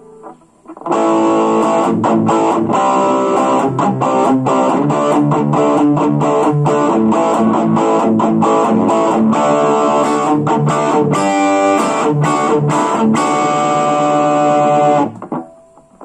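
Electric guitar played through a Blackstar Fly 3 mini amp's small speaker: a quick run of picked notes and strums that starts about a second in and cuts off suddenly near the end.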